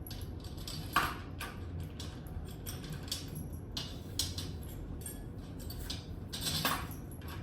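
Small metal clicks and clinks of bass drum hardware being handled: short tension bolts and washers being set into the hoop and threaded in by hand. There is a sharper knock about a second in and a longer rustle near the end.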